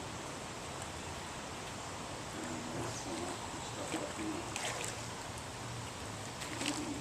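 Steady rush of flowing river water, with faint distant voices about three seconds in and a few light clicks toward the end.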